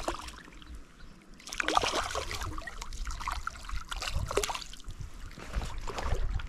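Hooked smallmouth bass thrashing at the surface of shallow river water, splashing. The splashes start about a second and a half in and come in irregular bursts.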